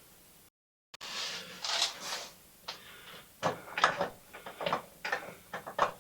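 Steel gearbox parts being handled and fitted: a Norton Commando layshaft and its gears sliding into the gearbox casing, with a scraping slide followed by a quick series of light metallic clicks and knocks. The sound drops out completely for a moment near the start.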